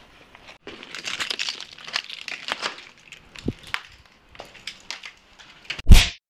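Rustling and crinkling with many small clicks, then one loud thump near the end, cut off abruptly.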